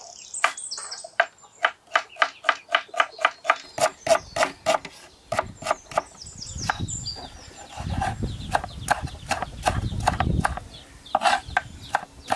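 Kitchen knife chopping onions and tomatoes on a wooden cutting board: rapid, even knocks of the blade on the board, about four to five a second.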